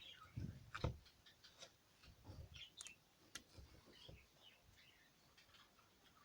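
Faint scattered clicks, small pops and soft squelches of slime being squeezed and stretched by hand.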